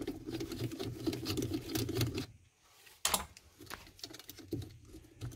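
Hand tool clicking and scraping against the carbon brush holder of a Samsung washing machine's Nidec drive motor while the worn brush is being worked out. Many small clicks over a low hum for about two seconds, a short pause, then a sharper clatter about three seconds in and a few lighter clicks.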